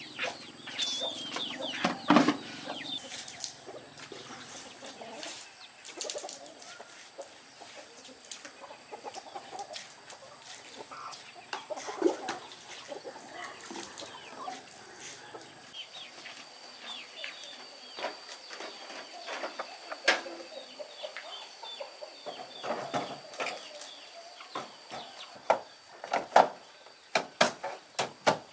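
Chickens clucking, many short falling calls, with scattered knocks and clicks that come faster near the end.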